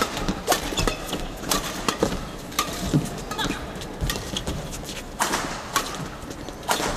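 Badminton rally: rackets striking the shuttlecock in a quick exchange, sharp hits about a second apart, the loudest ones coming late, with brief shoe squeaks on the court floor.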